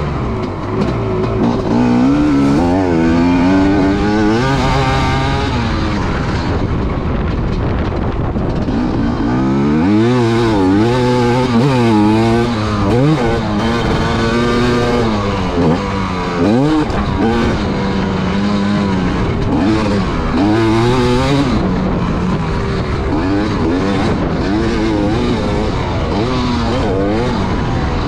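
Dirt bike engine revving hard and falling back again and again as it is ridden round a motocross track, heard from on the bike. The pitch climbs and drops every second or two, with a deep dip about two thirds of the way through.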